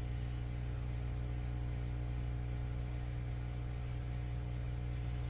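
Microwave oven running with a steady electrical hum, a charger plug heating inside before it starts to spark.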